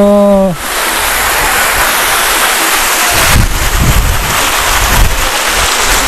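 Water of a small waterfall pouring over a concrete weir and rushing across a shallow apron, a loud steady hiss, with feet splashing as people wade barefoot through it. Wind buffets the microphone in low rumbling gusts about three to four seconds in.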